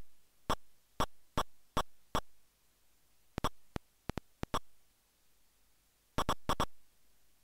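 Buzzy electronic chirps from an infrared remote-control receiver fed into a computer's audio input. Each short burst is the remote's light pulses for a button press, turned into sound. They come in runs: five about every 0.4 s, then a cluster with a few brief clicks, and three more near the end.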